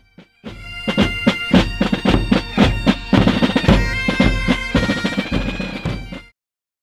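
Bagpipes playing with a bass drum beating along. The music starts about half a second in and cuts off suddenly near the end.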